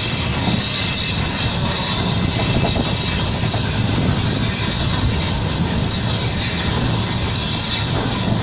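Small saddle-tank steam locomotive running along the line, heard from on board: a loud, steady running noise of the engine working and wheels on the rails.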